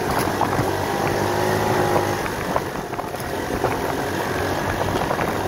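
A 50cc GY6 four-stroke single-cylinder scooter engine running steadily as the scooter is ridden along.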